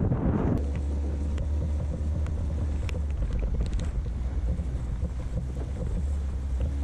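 Suzuki outboard motor running at a steady speed, pushing the inflatable boat along in a low even drone. Wind buffets the microphone for the first half second before it.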